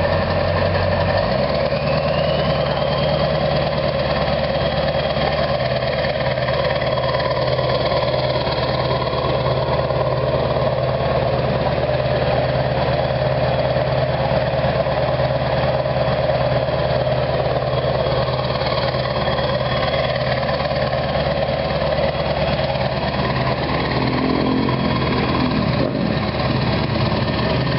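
Straight-piped 7.3 Powerstroke V8 turbo-diesel idling. About a second in its idle steps up, and a turbo whistle rises and then holds as a steady high whine.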